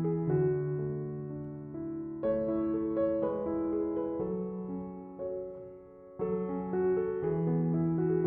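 Background piano music, a melody of held notes over lower bass notes, with new phrases starting about two and six seconds in.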